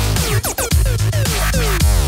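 Electronic music with a heavy, steady bass and synth lines sliding down in pitch; the sound drops out briefly about half a second in.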